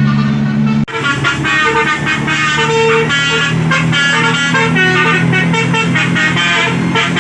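Basuri telolet musical bus horn playing a fast tune of short tooting notes that change pitch, over a steady low drone. The sound breaks off sharply about a second in, then the tune carries on.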